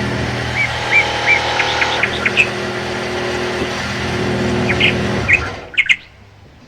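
Small birds chirping in short repeated calls over a steady mechanical hum. The hum cuts out about five seconds in, leaving a few last chirps in near quiet.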